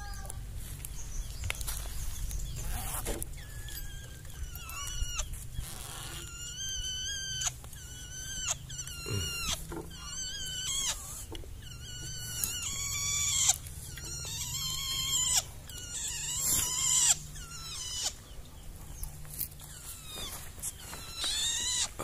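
Juvenile long-tailed shrike (cendet) giving a run of short, harsh whining calls (minyek), each rising and falling, about one a second from about four seconds in. This whining is normal for a shrike still in juvenile plumage. Cloth rustles as the cage cover is handled.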